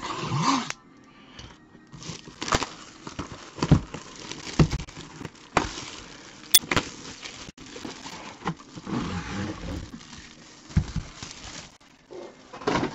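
Crinkling of plastic card packaging with a run of sharp clicks and taps as trading cards and their plastic holders are handled.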